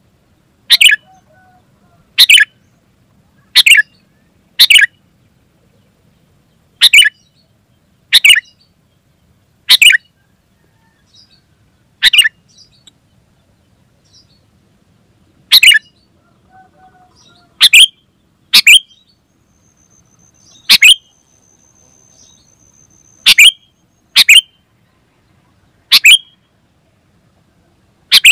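Sooty-headed bulbul (kutilang) calling: a series of short, sharp, loud calls, one every second or two with a few longer pauses.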